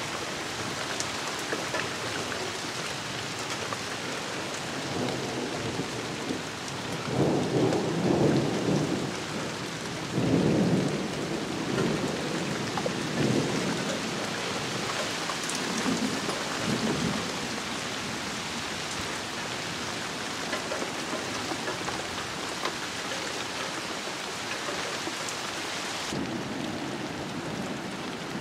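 Steady rain falling, with a long roll of thunder rumbling in several waves through the middle, loudest about a quarter to a third of the way in, then fading back to the rain alone.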